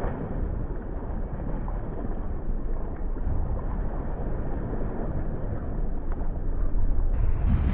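Wind buffeting the microphone: a steady low noise that grows somewhat louder near the end.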